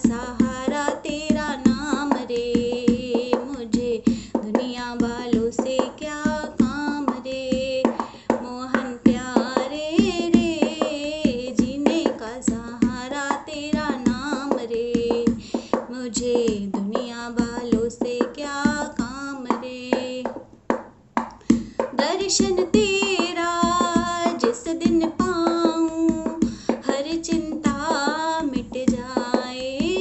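A woman singing a Hindi devotional bhajan, accompanied by the regular beat of a hand-played dholak drum. The singing breaks off briefly a little past two-thirds of the way through, then resumes.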